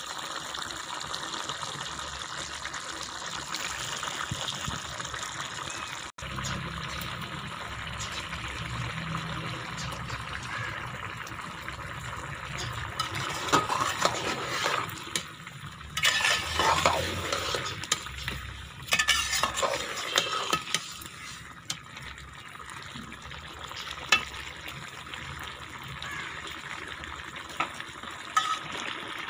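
Diced potatoes boiling down in a metal pot: a steady bubbling hiss as the last water cooks off. From about 13 to 21 seconds in, a spoon stirs the potatoes and clatters and scrapes against the pot.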